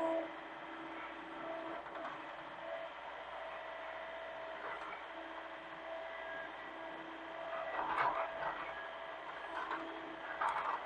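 Hitachi mini excavator running, with a steady whine that swells and fades. Louder rough bursts come about eight seconds in and again near the end.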